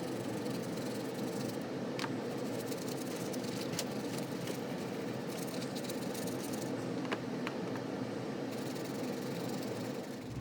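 Plastic hacksaw handles being washed in soapy water: a steady sloshing, scrubbing noise with a few light clicks of the handles.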